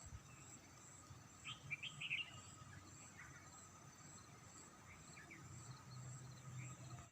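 Faint, steady high-pitched trilling of insects, with a few short bird chirps about one and a half to two seconds in and a couple more, weaker, later on.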